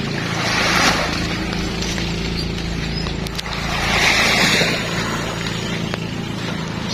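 Waves washing in twice, once about a second in and again about four seconds in, over an engine running steadily underneath.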